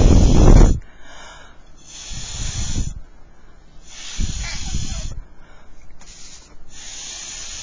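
Breath blown hard through a plastic drinking straw at wet ink on paper: four airy blows of about a second each, with short pauses between. The first is the loudest, with a low rumble of air buffeting the microphone.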